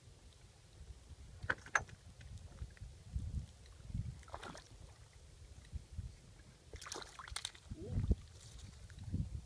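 Lake water lapping, with a few short splashes and knocks at irregular moments over a low rumble.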